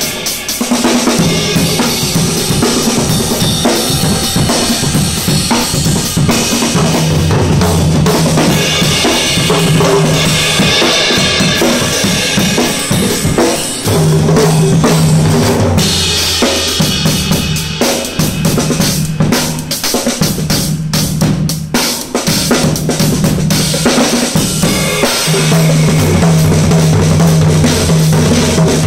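Acoustic drum kit played live in a continuous groove, with bass drum, snare and cymbals, and tom fills.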